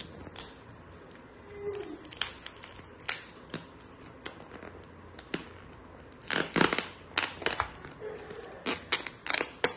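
Clear plastic cling wrap being peeled and torn off a round plastic food tub with a snap-on lid: irregular crinkling and crackling, thickest in a flurry a little past the middle and again near the end.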